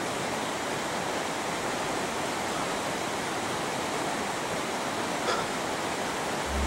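Steady, even rushing noise with no distinct events, like running water or a hiss, and one faint short blip about five seconds in.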